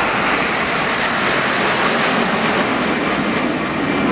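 Canadian Forces CT-114 Tutor jet aircraft in flight, their turbojet engines making a loud, steady noise.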